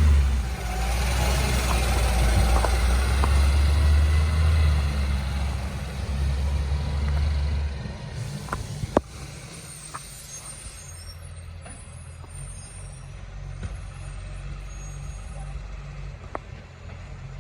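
Garbage truck with a leaking exhaust, its engine running loud and low, then dropping away about eight seconds in as it pulls off. A few sharp clicks or knocks follow over the quieter rumble.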